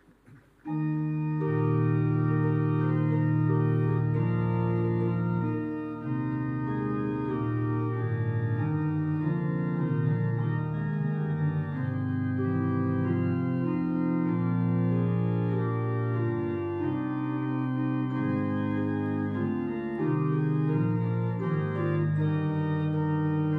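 Organ playing a hymn in slow, sustained chords, beginning about a second in.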